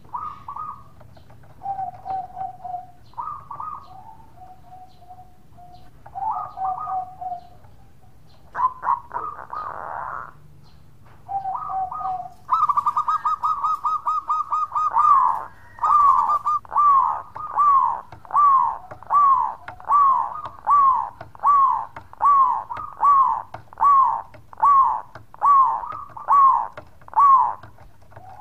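Local Indonesian zebra dove (perkutut) singing its cooing song. A few scattered short coos come first, then a quick run of rapid notes about halfway through. A long, even series of about twenty falling coos follows, nearly two a second.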